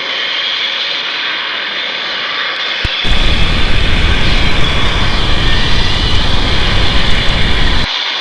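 A steady hiss, then a loud rumbling roar that starts abruptly about three seconds in, runs for about five seconds and cuts off suddenly.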